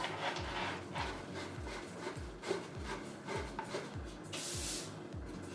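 Jute-wrapped cardboard scratching posts being twisted by hand into a carpeted cat-tree base: a run of rubbing and scraping, with a brief louder rasp near the end. Background music with a steady low beat plays underneath.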